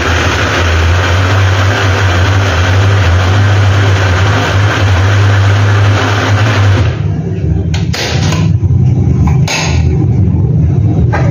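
Countertop electric food processor motor running steadily under load, a loud even whir with a low hum. About seven seconds in it gives way to a rougher rumble with a few sharp clicks.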